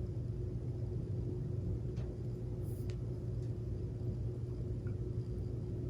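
Room tone with a steady low hum and a faint steady higher tone, broken by two faint ticks about two and three seconds in.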